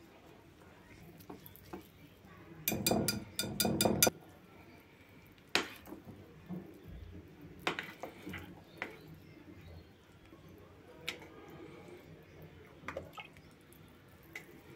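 Wire whisk beating flour into wet chocolate cake batter in a glass bowl: a rapid run of clinks against the glass about three seconds in, lasting just over a second. After that, occasional single clinks of metal utensils against the glass bowl as the batter is stirred.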